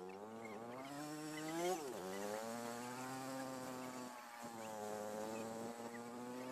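A small engine of the vehicle carrying the camera, running along the road with a buzzing note. Its pitch climbs, drops sharply just under two seconds in, then holds steady.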